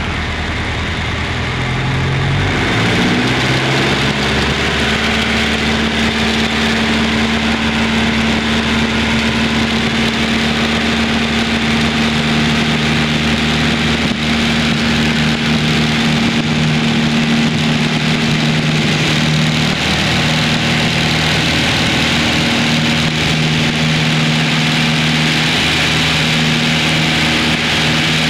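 Piper Cherokee's piston engine and propeller coming up to full takeoff power, rising in pitch over the first two or three seconds, then running steadily at full power through the takeoff roll and lift-off. Heard muffled from inside a pilot's headset ear cup.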